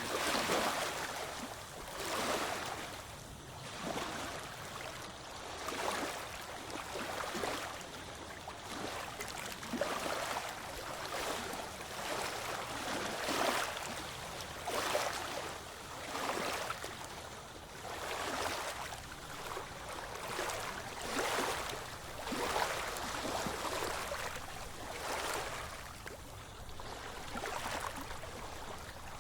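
Ocean waves washing in, with a surge of rushing water about every one to two seconds.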